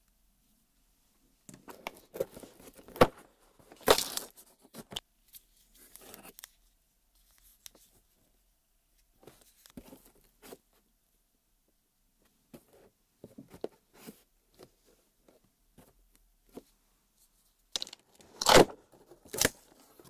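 Cardboard doors of an advent-calendar box being torn open, with scattered light scrapes, crinkles and taps as small toys are handled. The loudest rips come a few seconds in and again near the end, as a door is pulled open.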